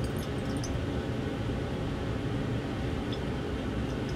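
Steady hum and rush of a laboratory fume hood's ventilation airflow, with a few faint light ticks.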